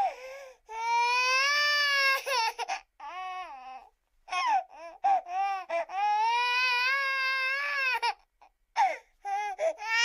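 A baby crying: two long, high wails with shorter sobbing cries and breaks for breath between them.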